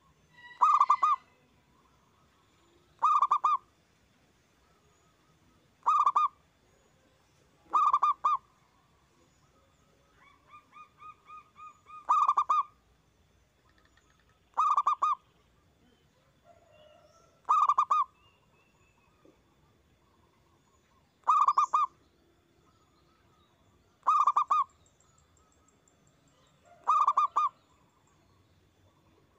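Zebra dove (perkutut) cooing loudly: a short, rapid, pulsed coo repeated about every two and a half to three seconds, ten times, with a softer run of quick notes leading into one of the calls midway.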